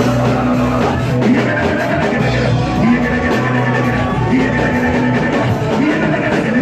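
Loud live band music with a steady beat: drum kit, held bass notes and guitar, with faint singing or prayer voices over it.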